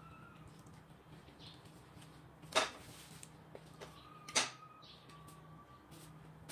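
Gloved hands working raw meat and sliced onions on a countertop: faint handling noise with two sharp slaps or knocks, about two seconds apart, over a faint steady hum.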